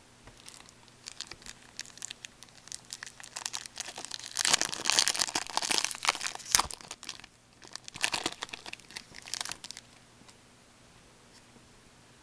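A 2004 Crown Royale hockey card pack's wrapper being torn open and crumpled, crackling in bursts that are loudest around the middle, with one sharp snap, then dying away for the last couple of seconds.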